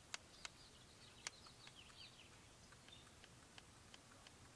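Near silence, with a short run of faint bird chirps about two seconds in and a few scattered soft clicks.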